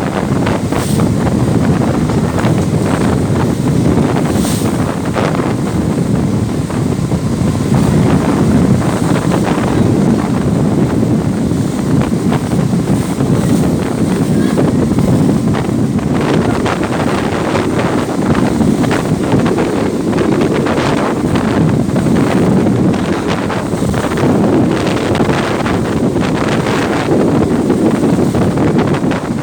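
Strong wind buffeting the microphone on an open ferry deck: loud, unbroken wind noise with constant short crackles.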